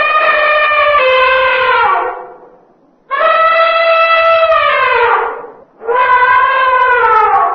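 Elephant trumpeting: three long brassy calls, each held level and then sliding down in pitch at the end.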